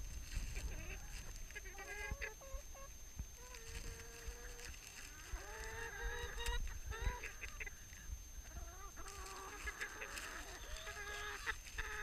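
Several domestic hens crowding in to be hand-fed, calling over one another with short clucks and drawn-out nasal calls, some held for nearly a second, with light taps of pecking.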